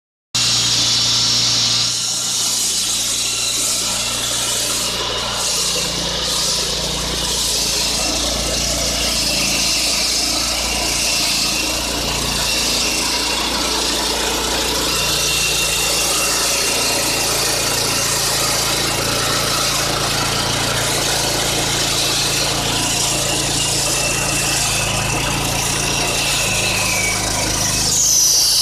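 Engine-driven concrete saw running steadily as it cuts concrete, an engine hum under a harsh hiss of the blade, with high squealing tones sliding near the end.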